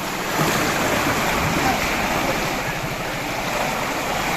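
Floodwater rushing steadily through a sluice gate into a canal.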